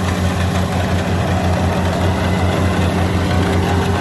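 Kubota DC70 combine harvester's diesel engine running steadily with an even, regular low pulse.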